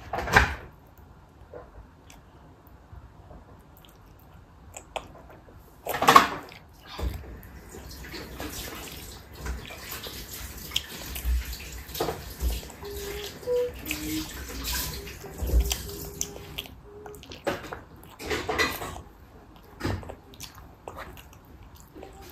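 A toddler eating a braised chicken drumstick held in her hand: wet smacking and chewing mouth sounds with small clicks, broken by two louder sharp sounds just after the start and about six seconds in.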